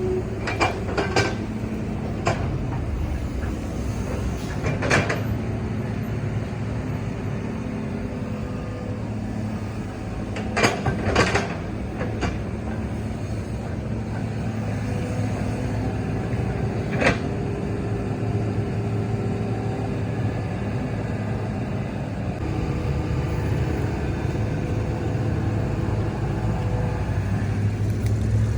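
Diesel engine of a heavy earthmoving machine running steadily under work, with a handful of sharp metal clanks scattered through.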